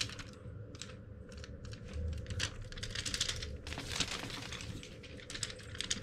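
Quick, irregular light clicks and rustling from a kitten batting at a dangling feather wand toy.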